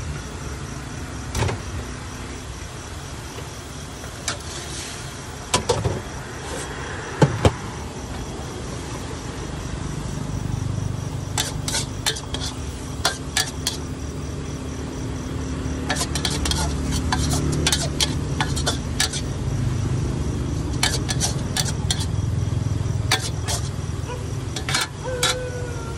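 Metal spatula clinking and scraping against a steel wok while noodles are stir-fried, a few single knocks at first, then runs of quick clicks through the second half. A steady low rumble sits underneath.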